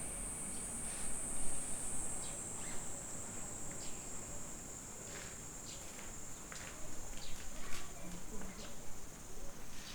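Insects droning steadily at a high pitch, the tone sinking slightly over the seconds, with scattered short, faint clicks.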